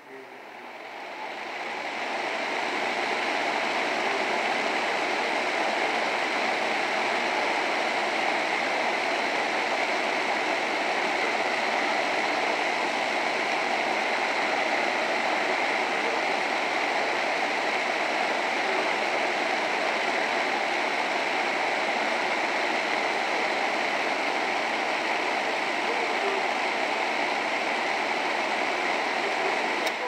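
Lakewood adjustable box fan running, a steady rush of blown air. It grows louder over the first two seconds or so, holds steady, then drops away at the very end.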